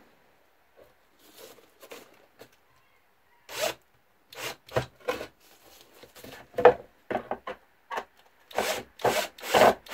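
Cordless drill spinning a countersink bit into a pre-drilled hole in soft pine, run in a series of short bursts from about a third of the way in, the bit rasping as it shaves the wood. Each burst deepens the countersink so the screw head will sit flush.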